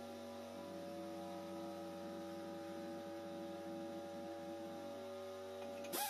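A steady hum with several held tones, which shift in pitch about half a second in and again near the end.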